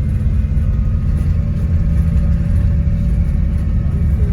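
Steady low road rumble and engine noise heard from inside a moving car.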